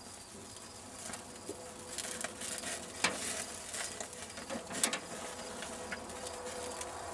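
Ground-beef patty sizzling and crackling on a grill grate, with sharp clicks of a metal spatula against the grate about three and five seconds in.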